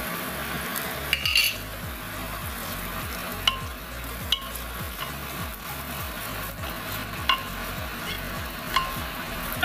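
Chopped onions sizzling steadily in melted butter in a pot as a wooden spatula stirs them. A few sharp knocks and scrapes sound as the spatula hits the pot.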